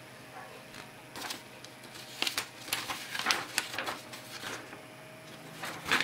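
Small USB desk fan running with a steady faint hum, while a sheet of paper held in its airflow flutters and rustles irregularly, loudest from about one to three and a half seconds in.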